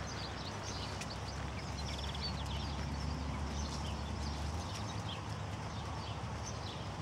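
Hooves of a horse trotting on a sand arena, with small birds chirping high in the background.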